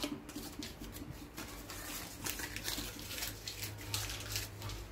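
Faint irregular crackling and rustling as self-adhesive glazing tape is pressed into the corners of a Land Rover Series door-top frame and its paper backing is handled, over a faint steady hum.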